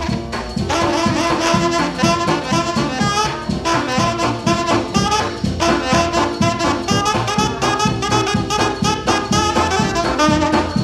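Jazz played on brass and reed horns over a steady beat.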